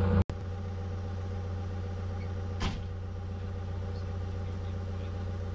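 Excavator's diesel engine idling steadily, with one short click about two and a half seconds in.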